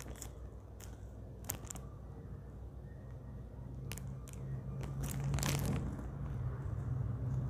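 Handling noise from a smartphone being held and turned in the hands: scattered light clicks and a brief rustle about five and a half seconds in, over a low steady hum.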